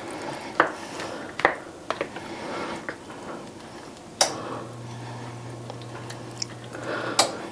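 A spoon stirring shredded cheese into a thick, moist cauliflower mixture in a bowl, with soft squishing and scattered taps and scrapes against the bowl. In the second half a low steady hum comes in after a sharp click and stops at another click about three seconds later.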